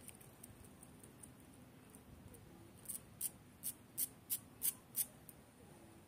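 A dog's claws clicking and scraping on stone paving tiles as it paws at a caterpillar: about seven sharp clicks, roughly three a second, between about three and five seconds in.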